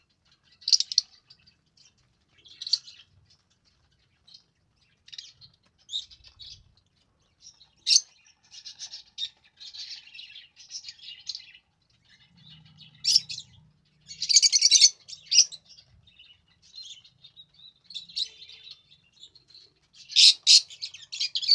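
Pet budgie and lovebirds chirping: short high chirps scattered throughout, with a few stretches of rapid chatter.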